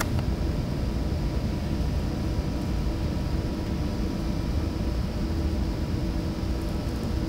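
Steady low rumble with a faint, even hum running through it: the background noise of a large indoor arena. No hoofbeats stand out.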